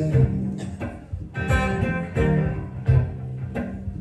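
Solo blues guitar riff: plucked notes in an uneven rhythm over low bass-string notes.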